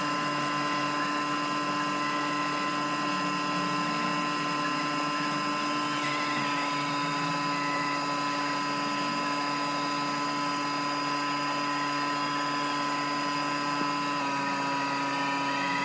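A motor running steadily, a constant drone made of several fixed tones, which shifts slightly in pitch about six seconds in and again near the end.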